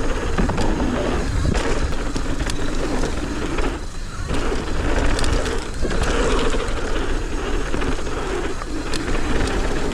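Mountain bike being ridden fast on a dirt trail: tyres rolling over dirt, the bike rattling and clicking, and wind rumbling on the microphone. The noise drops off briefly about four seconds in and again near six seconds.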